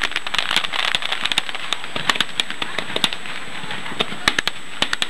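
Aerial firework shells bursting: thick crackling for the first second or so, then scattered sharp cracks and pops, with a quick cluster of cracks a little before the end.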